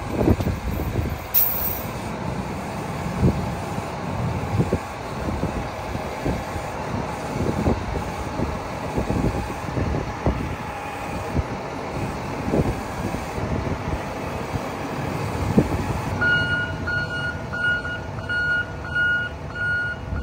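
Taylor 550M heavy forklift's engine running with a continuous rumble. About sixteen seconds in, its backup alarm starts beeping, about twice a second, as it reverses.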